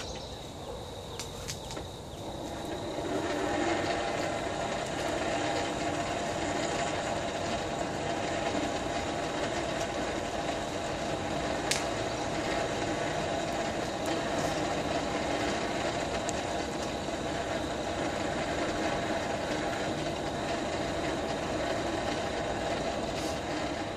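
Hand-cranked forge blower whirring steadily as it forces air into a coal fire, rising in about two and a half seconds in and then holding even. Crickets chirr steadily in the background.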